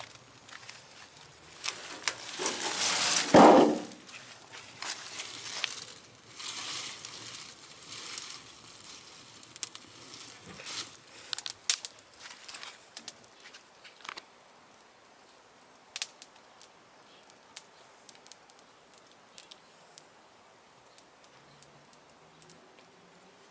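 Rustling and crackling of leafy green plants being handled and thrown onto a fire in a barrel. A loud rush of noise comes about two to four seconds in. Scattered sharp crackles and clicks follow and grow sparser and quieter later on.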